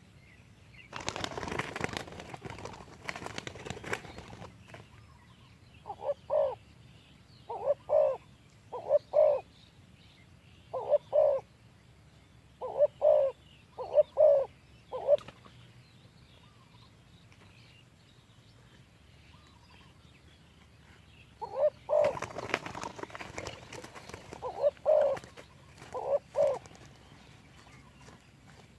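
Spotted dove cooing: short phrases of two or three low coo notes, repeated every second or two. Bursts of rustling come near the start and again about 22 seconds in.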